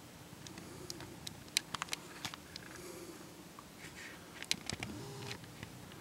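Deer crunching birdseed: irregular sharp clicks and crackles in two bursts, a couple of seconds in and again near five seconds.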